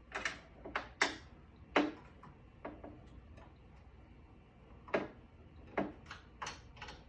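Irregular sharp clicks and knocks of a small hand wrench and metal parts being worked around an embroidery machine's bobbin and hook area, about ten in all, in two clusters.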